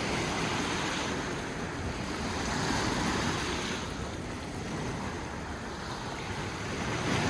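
Sea surf washing on the shore in slow swells, with wind buffeting the microphone.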